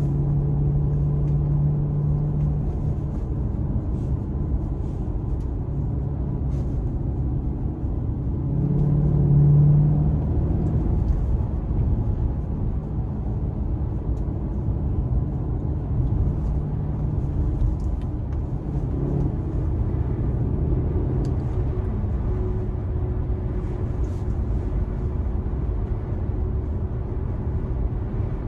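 2009 Maserati Quattroporte's V8 engine and road noise heard from inside the cabin while driving, a steady low drone. The engine note swells briefly about a third of the way through as the car accelerates, then settles back.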